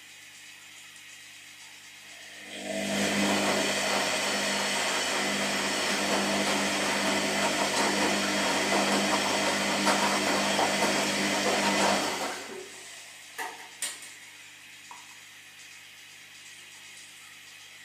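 Washing machine running through its wash cycle: a low steady hum, then about ten seconds of loud swishing as the drum turns and tumbles the wash, stopping abruptly and followed by two brief knocks before the hum carries on.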